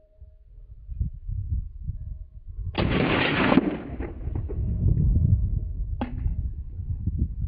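Hunting gun shots: a loud report about three seconds in that lasts nearly a second before dying away, then a shorter sharp crack about three seconds later, over a steady low rumble.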